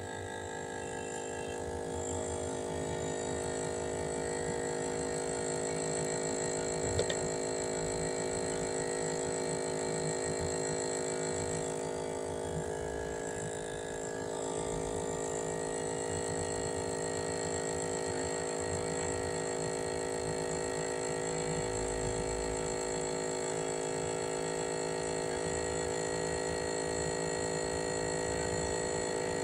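Steady electric whine of the small motors driving radio-controlled toy boats on the water, held at one pitch throughout.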